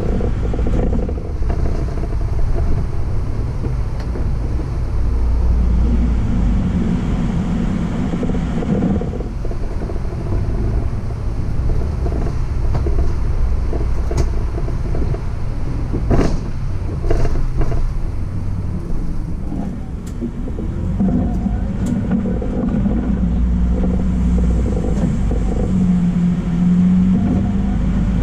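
City bus heard from inside near the front while driving: steady engine and drivetrain rumble with road noise, the engine note coming up at times as it pulls. A sharp knock, the loudest moment, about halfway through, and a few light rattles after it.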